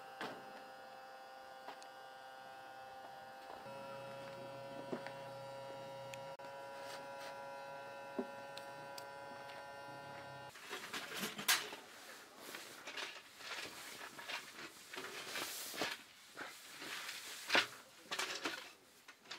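A steady electrical-sounding hum of several held tones, which shifts to a different set of pitches a little under four seconds in. From about ten seconds it gives way to irregular rustling with sharp clicks and knocks.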